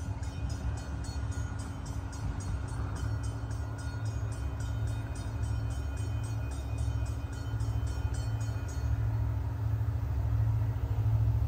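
Distant approaching CSX freight train's diesel locomotives, heard as a low steady rumble that slowly grows louder as the train nears. A faint high ticking, about three a second, runs alongside it and stops about three quarters of the way through.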